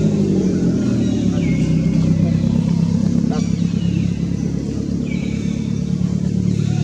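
A steady low engine hum, like a motor vehicle running nearby, with a high falling call heard about three times over it.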